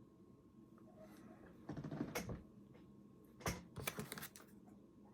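Cardboard and paper packaging of a phone box being handled: two short bouts of rustling with light clicks, about two seconds in and again around three and a half seconds.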